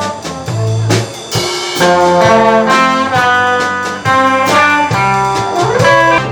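Live band playing: a melody of held notes over drum hits, with one note sliding upward near the end.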